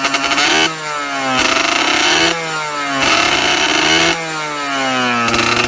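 Kawasaki Leostar motorcycle engine through an aftermarket tuned exhaust pipe, revved in a series of throttle blips: the pitch jumps up and then falls back about five times.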